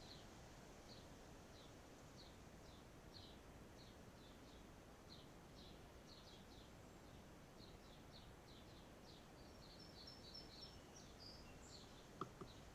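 Faint outdoor ambience of a small bird chirping: short high chirps repeated about once or twice a second, with a few brief whistled notes near the end. A couple of faint taps sound just before the end.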